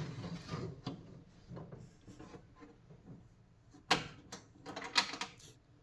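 Tool-storage drawer being opened, with scraping and rattling and two sharp clacks about four and five seconds in.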